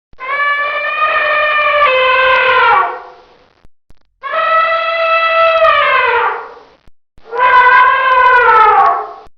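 Wild elephant trumpeting: three long, loud, brassy calls, each dropping in pitch as it ends, with short pauses between them.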